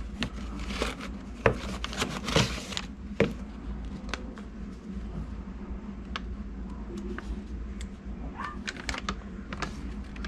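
A small cardboard box handled and opened, with paper rustling and a few sharp knocks in the first few seconds, then a folded paper instruction leaflet opened out with quieter crinkles and ticks.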